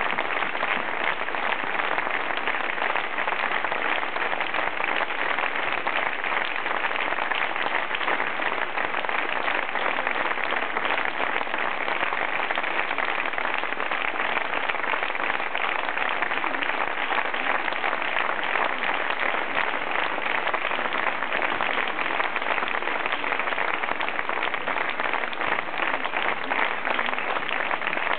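Audience applauding steadily, a dense, even clapping with no break.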